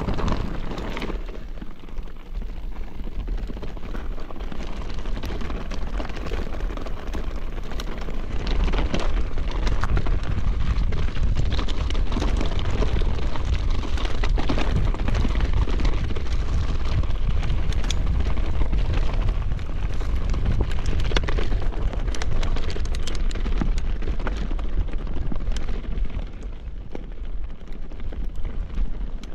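Mountain bike ridden over rough, stony trail: continuous crunching and rattling of tyres and bike over loose stones, with heavy wind rumble on the microphone. It drops away abruptly at the very end.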